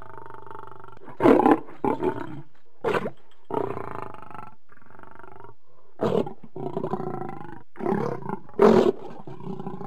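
A lion growling continuously, broken by several short, loud roaring outbursts: about a second in, near three seconds, around six seconds and near the end.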